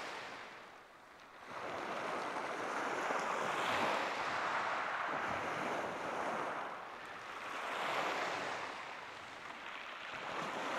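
Waves breaking and washing up a shingle beach: a rushing wash that swells and falls back about every four seconds.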